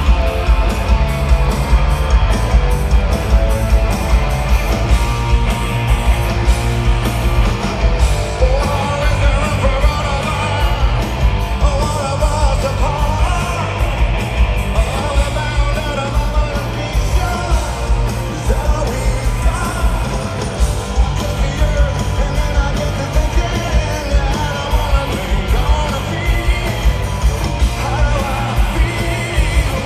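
Rock band playing live and loud in an arena, with a steady driving beat and a shouted-sounding lead vocal coming in about eight seconds in.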